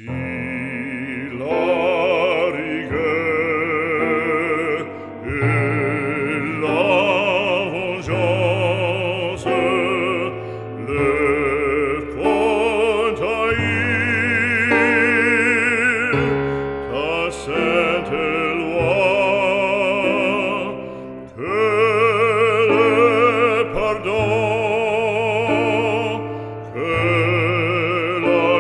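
Operatic background music: a melody with strong vibrato over a sustained accompaniment.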